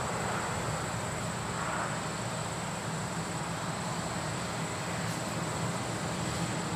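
John Deere combine harvesting corn: a steady low drone from its engine and machinery with a broad hiss over it, unchanging throughout.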